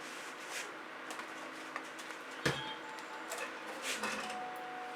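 Faint handling sounds: a few soft, short hisses and one sharp click about two and a half seconds in.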